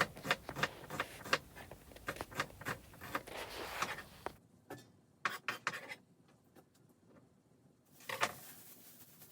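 A run of sharp knocks and clicks, several a second, that stops abruptly about four and a half seconds in. A few more taps follow, then a brief rustle near the end.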